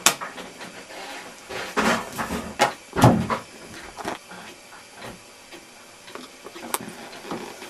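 Playing cards slapped down hard on a cloth-covered table: a sharp slap at the start, a few around two seconds in, the loudest about three seconds in, and one more near the end.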